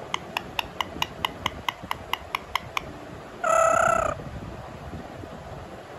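Indian ringneck parakeet making a rapid, even series of short clicks, about four a second, for nearly three seconds, then giving one short, loud, harsh call.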